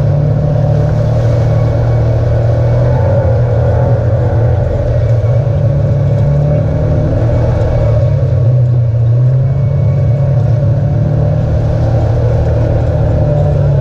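Side-by-side UTV engine running steadily as it drives a dirt trail, heard from on board, its pitch shifting a little as the throttle changes.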